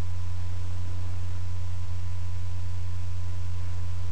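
Steady low hum with a thin, faint steady high tone above it, unbroken and unchanging.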